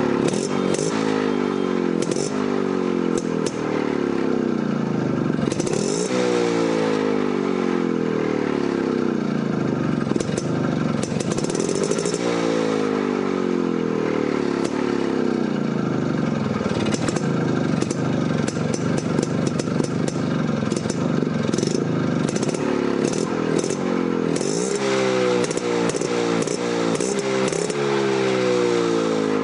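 1995 Yezdi Roadking's 250 cc single-cylinder two-stroke engine running steadily, its pitch shifting up and down throughout, with a light mechanical clatter.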